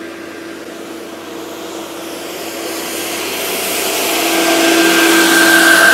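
A motor vehicle approaching, its engine and road noise growing steadily louder over the last few seconds, with a steady high whine rising above a constant low hum.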